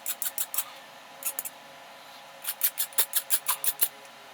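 Hand file rasping in quick short strokes along the edge of a sintered Brembo brake pad, chamfering it so the pad wears evenly. A few strokes, a pause, a short burst, then a longer run of about a dozen strokes near the end.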